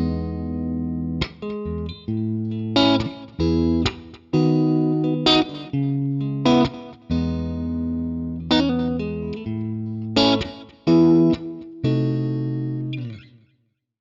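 Electric guitar playing a slow run of chords, each struck and left to ring for a second or so, with the last one dying away near the end.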